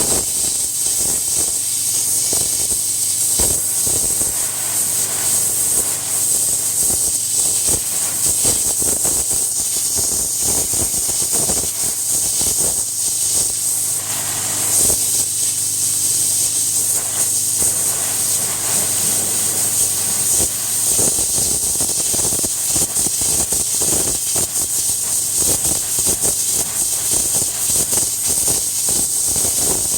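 High-pressure spray from a 3000 psi Landa pressure washer, a loud steady hiss with crackling spatter as the jet strikes. The machine's pump hums steadily underneath.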